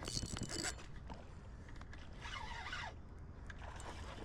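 Spinning reel being cranked in two short bursts to reel in a hooked carp, giving a rasping, zipper-like whirr over a low background rumble.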